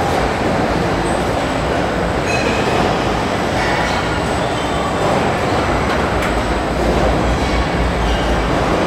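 Car-body assembly line running: a steady machinery rumble and hiss from the robotic welding and handling cells, with a few faint short squeaks and a sharp click about six seconds in.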